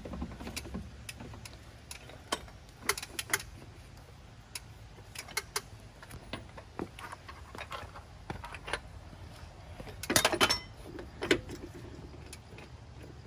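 Scattered metallic clicks and clinks as a ratchet-driven torque multiplier is worked on a bus's rear-wheel lug nuts, with a louder clatter of metal about ten seconds in and a single sharp clink a second later, over a low steady hum.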